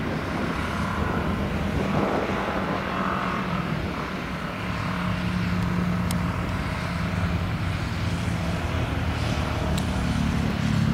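Motorcycles and other road traffic passing along a road, engines running at a steady cruising hum.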